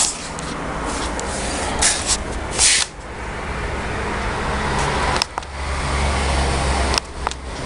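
Cars passing on the street below: a broad rush of road traffic that swells and fades, with a deeper engine rumble about five to seven seconds in. A couple of sharp clicks come near the end.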